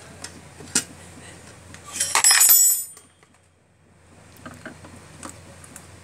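Small metal parts clinking and rattling as the water heater's thermostat and element fittings are handled, with light clicks and taps and one loud burst of ringing metallic clinks about two seconds in.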